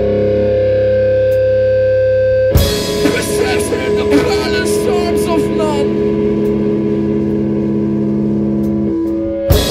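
Rock band playing live, with electric guitar and bass holding a ringing chord. About two and a half seconds in, a drum-and-cymbal hit starts a new sustained chord with short guitar lines over it, and another hit comes near the end.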